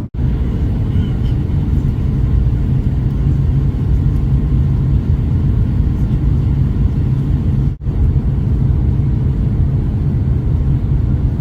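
Steady low rumble of an Airbus A350-900 heard from inside the passenger cabin. It drops out for a moment about eight seconds in.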